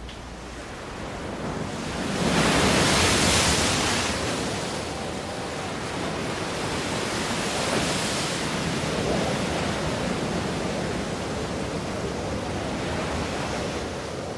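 Sea surf washing against a rocky shore: a rushing wash that swells to its loudest about two to four seconds in, then goes on steadily with smaller surges.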